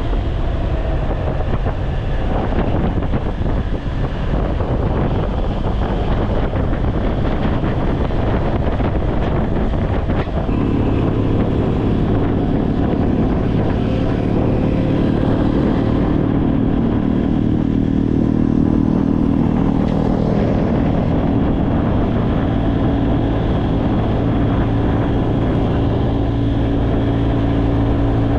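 A motorboat's engine runs steadily under way. From about ten seconds in its note becomes steadier and stronger.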